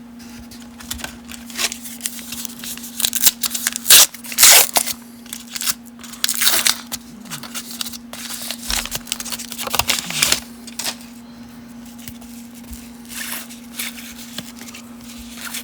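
Paper-and-foil wrapper of a 1990 Upper Deck baseball card pack being torn open and crinkled: a run of uneven rips and rustles, loudest about four to five seconds in, over a faint steady hum.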